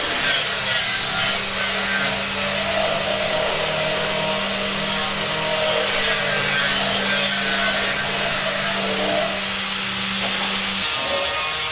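Power tool sawing on a building site, with a steady motor hum underneath that stops near the end.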